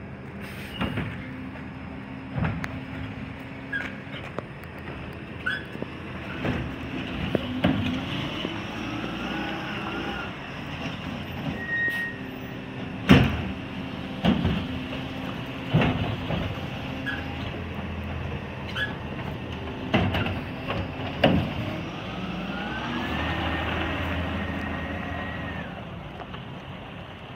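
International garbage truck with a Labrie Automizer Helping Hand side-loading arm collecting carts: the diesel engine runs steadily and rises in a whine twice as the hydraulic arm works. Sharp knocks and bangs of carts being gripped and emptied come throughout, the loudest about halfway through.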